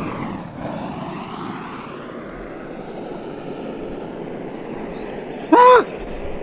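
Portable gas canister stove burner running with a steady roar while it is carried across the table, its sound shifting as it moves. About five and a half seconds in, one short, loud squeak that rises and falls in pitch.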